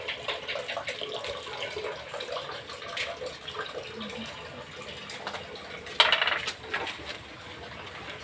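Irregular clinks and knocks of hard objects over a steady hiss, with a louder clatter about six seconds in.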